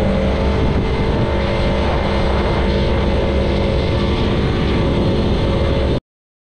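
Jetski-powered water car's engine running steadily, with a rushing noise under it; the sound cuts off suddenly about six seconds in.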